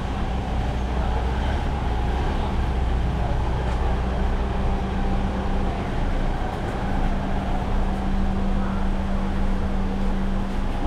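A vehicle engine running steadily: a low hum with a deeper rumble that eases off about halfway through.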